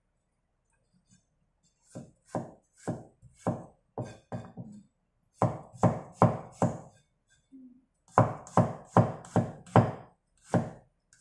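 Cleaver chopping garlic cloves on a bamboo cutting board: a run of sharp knocks about two a second, starting about two seconds in, with short pauses and a quicker run after about eight seconds.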